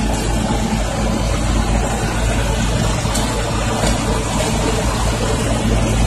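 Steady diesel engine running from a steel-drum road roller close by, mixed with a tanker truck's engine alongside it.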